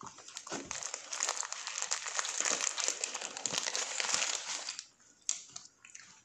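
Paper sandwich wrapper crinkling as it is handled and pulled open, a dense crackle lasting about four and a half seconds, then a few light crackles.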